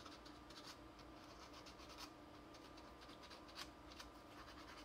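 Faint scratching of 320-grit sandpaper, folded into a half circle, rubbing in short irregular strokes over cast resin, sanding molding flash from between the fingers of a model figure's hand.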